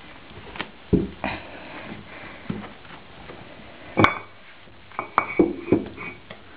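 English Cocker Spaniel puppies stirring in a heap: scattered short squeaks and soft knocks and scuffles. The loudest is a sharp click with a squeak about four seconds in, followed by a quick cluster of squeaks and knocks around five seconds in.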